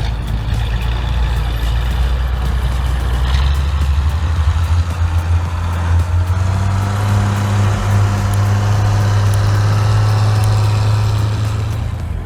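Heavy diesel engine of a logging vehicle running under load, its low drone rising in pitch a few seconds in as it revs up and then holding steady.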